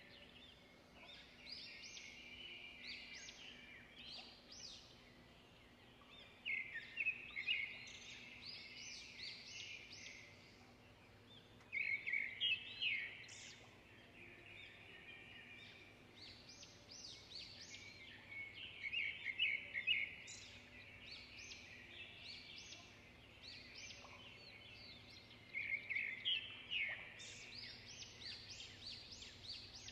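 Birds chirping: clusters of quick, high chirps that come back every five to six seconds.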